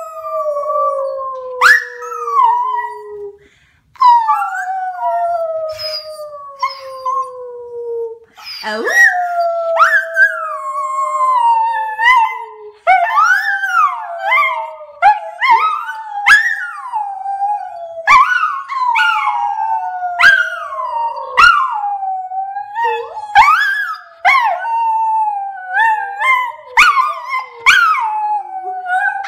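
A Boston Terrier–Boxer mix dog howling. It gives a few long howls that slide down in pitch, then from about halfway a quicker run of shorter howls that rise and fall.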